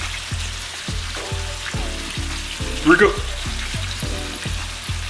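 Ground beef sizzling in a frying pan, overlaid with background music that has a deep bass beat about twice a second.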